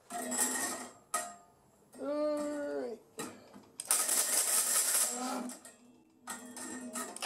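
Hand-held grinder cutting through a steel bandsaw blade held in a vise, in several short bursts of harsh grinding with pauses between. The loudest burst comes about four seconds in. About two seconds in, a pitched hum rises and falls.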